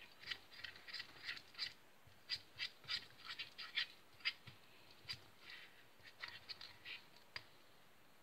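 Plastic spoon stirring sticky wood-glue and borax slime in a ceramic bowl: a quick, irregular run of short clicks and scrapes that stops a little before the end.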